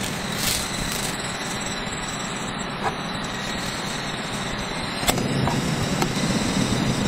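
Steady background rumble. About five seconds in, a sharp click from a canister gas stove's piezo igniter, then the burner catches and a louder low roar of the gas flame continues.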